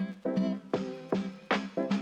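Background music: plucked guitar notes in a steady, upbeat rhythm.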